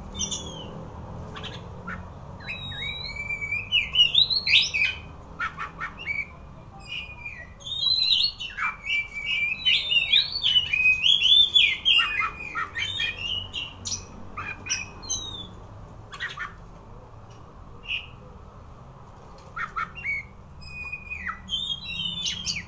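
Oriental magpie-robin singing: rapid, varied whistled phrases in bursts with short pauses, the longest and loudest run about eight to thirteen seconds in, with short clicks between phrases.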